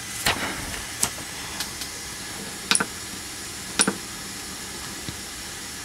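Steady quiet hiss with a handful of sharp, light clicks from hands working the 3D printer's LCD control knob and handling paper. The two loudest clicks come about a second apart near the middle.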